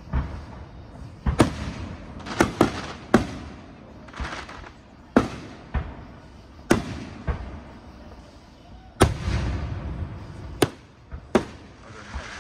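Aerial fireworks shells bursting: about a dozen sharp bangs at uneven intervals, some in quick pairs, each trailing off in an echo.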